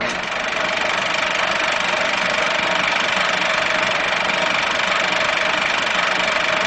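A steady, engine-like noisy hum with a few faint held tones, starting abruptly and not changing: the sound effect laid under an animated logo intro.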